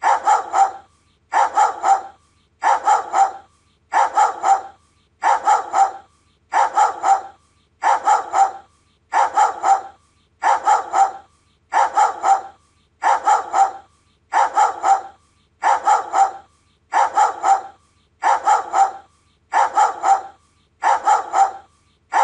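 Doberman barking in quick clusters of about three barks, repeating evenly every second and a bit with short gaps between, like a looped bark sample.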